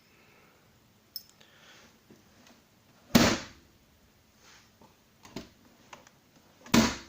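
Two loud knocks about three and a half seconds apart, with a few faint clicks and rustles between: the parts of a Volvo XC90 centre armrest being handled.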